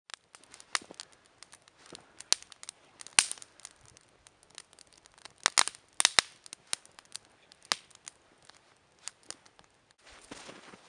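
Wood campfire crackling and popping, with irregular sharp snaps, some loud and some faint. About ten seconds in the snapping stops and a soft steady rustle takes over.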